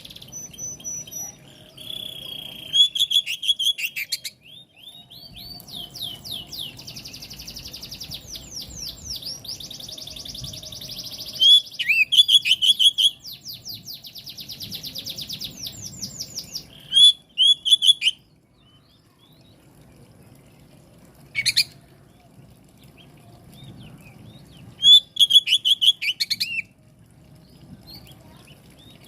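Oriental magpie-robin (kacer) singing: fast high trills and bursts of loud, sharp repeated notes, broken by pauses, with one single sharp call about two-thirds of the way through.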